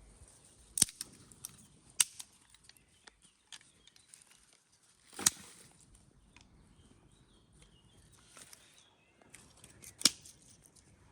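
Dry wood being broken or worked: a handful of sharp, loud cracks at irregular intervals, with small snaps and rustles between them.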